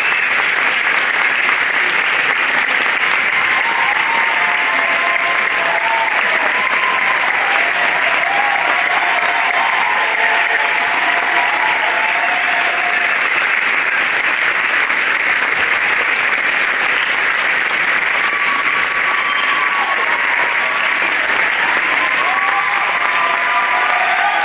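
Audience applauding steadily for the performers' bows, with voices calling out over the clapping at times.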